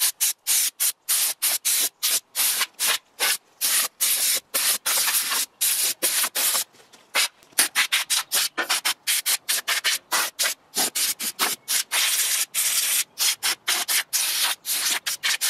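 Compressed-air blow gun firing short, rapid blasts of air, about three or four a second, to blow dust and loose rust off a wire-brushed steel mower deck. The footage runs at triple speed, so the blasts come quick and clipped.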